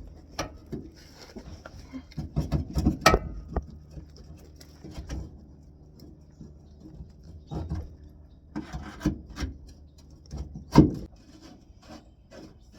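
Hand work on a pickup's rear shock absorber mount: irregular knocks, clicks and scraping of parts being handled, with the loudest knocks about three seconds in and again near the end.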